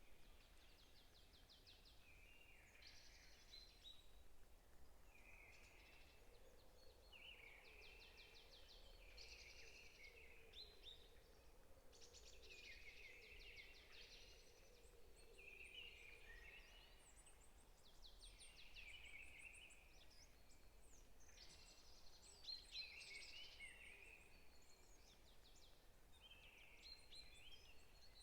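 Faint birdsong from several songbirds: overlapping chirps and quick trilled phrases, one after another.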